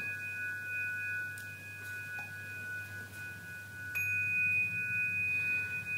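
Rock crystal bars of a Himmelsleiter sound instrument ringing on in a few clear, pure tones. About four seconds in, a bar is struck again with a mallet, which brings the highest tone back up.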